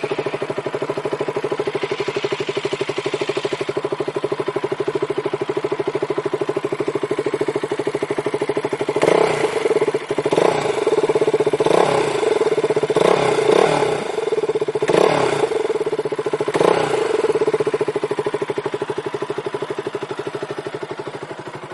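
KTM motorcycle engine idling with a steady pulsing beat. In the middle it takes a run of about six short throttle blips, each revving up and falling back, then settles to idle again.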